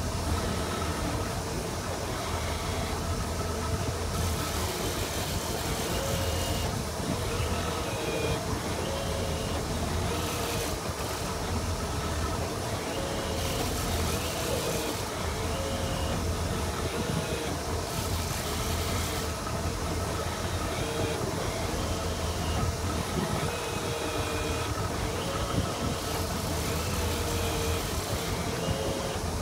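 Tiara 2700 Open sport-fishing boat's engine running steadily with a low drone, under a hiss that swells and fades every few seconds.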